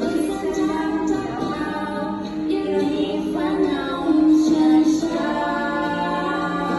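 Music: a woman singing a melody in long held notes.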